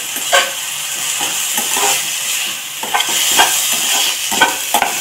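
Chopped onions, peas, tomato and green chillies sizzling as they fry in a metal pan over a gas flame, stirred with a spatula that scrapes and taps against the pan about once a second.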